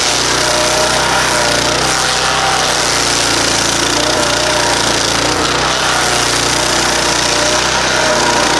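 Stump grinder with a 15 horsepower Loncin engine and a nine-tooth cutting wheel, running steadily under load as it grinds wood, a loud continuous mechanical noise whose engine pitch wavers slightly.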